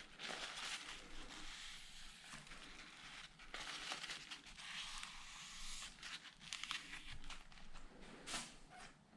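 Quiet rustling and crinkling handling noise, with scattered small clicks and taps.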